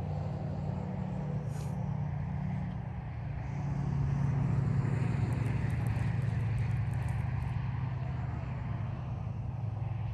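A steady low engine rumble, which grows louder about four seconds in and eases a little toward the end.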